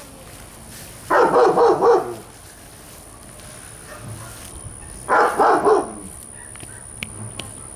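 A dog barking in two quick runs of several barks, about four seconds apart.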